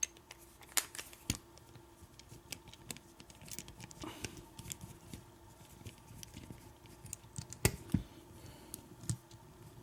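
Scattered small clicks and knocks of a 1-inch mortise lock cylinder and keys being handled, with two louder knocks close together near the end.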